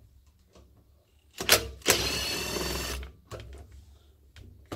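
Makita 18-volt cordless driver undoing a bolt on the end casing of an air compressor's electric motor: a short burst about a second and a half in, then about a second of steady running, followed by a few light clicks.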